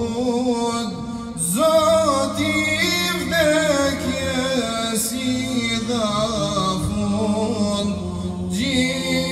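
Male voices singing an ilahi, an Islamic devotional hymn, without instruments: one voice carries an ornamented, wavering melody over a steady low drone, and a new phrase begins about a second and a half in.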